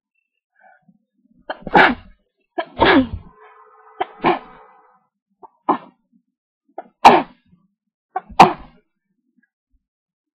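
A woman sneezing repeatedly into a duster: about six sharp sneezes over several seconds, most with a quick catch of breath just before.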